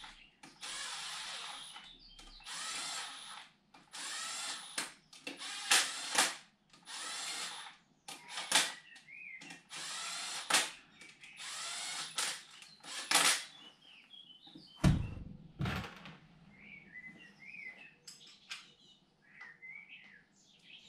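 Cordless power drill/driver run in repeated short bursts of one to two seconds, about seven times, with pauses between. Near the end come a few sharp metallic clicks and a dull thump.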